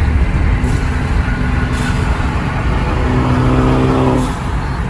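Straight-piped Chevrolet Camaro SS V8 running with a loud, low exhaust rumble. For about a second near the end a steady droning tone rises over it before easing off. The engine has a bad misfire that makes it surge or bog on the gas.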